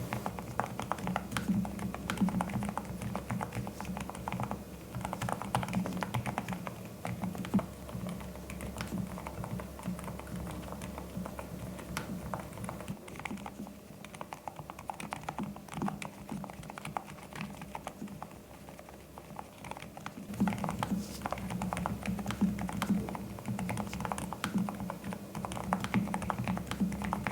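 Typing on a NuPhy Air75 V3 low-profile mechanical keyboard with Blush silent switches: quick runs of soft, damped key clicks. The typing thins out for several seconds midway, then picks up again.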